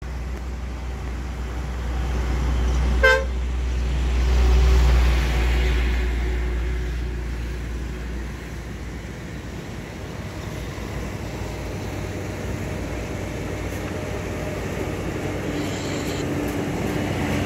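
Road traffic on a bridge: a low rumble of passing vehicles that eases after about eight seconds into a steadier hum, with one short vehicle horn toot about three seconds in.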